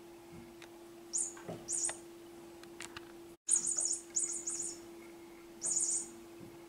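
Grey furry toy mouse giving short bursts of high-pitched squeaking, about five bursts, as the black kitten bats it about, with a few light taps. A steady low hum runs underneath.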